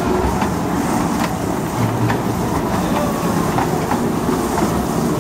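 Small kiddie-ride train rolling past on its track, with a steady rumble and wheels clicking at irregular intervals.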